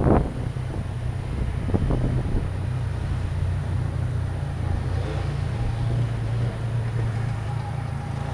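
Moped engine running steadily while riding, with wind noise on the microphone.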